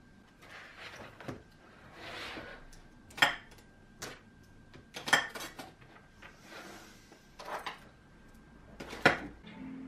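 Dishes and cutlery being handled: a series of sharp clinks and knocks, the loudest about three seconds in, about five seconds in and near the end, with softer scraping and rustling between them.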